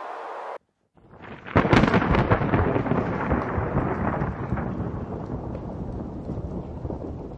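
A steady rushing noise cuts off abruptly just after the start. After a brief silence a thunderclap builds, cracks loudly about a second and a half in, and rolls on in a long, slowly fading rumble.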